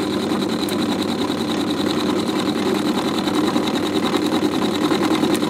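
Myford ML7 lathe running with a milling cutter in the chuck, taking a light 10 thou milling cut across a clamped workpiece as the cross-slide is wound in. It makes a steady machine whir with a thin, high, steady tone over it.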